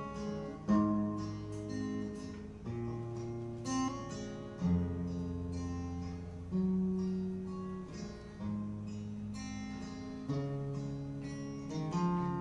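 Solo acoustic guitar playing strummed chords, with a new chord about every two seconds: the song's instrumental introduction before the singing comes in.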